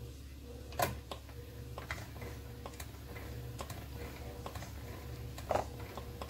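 Polymer clay being cranked through a hand-cranked pasta machine: a run of light ticks and clicks from the machine over a steady low hum, with two louder knocks, one about a second in and one near the end. The clay, not fully conditioned, is sticking in the rollers.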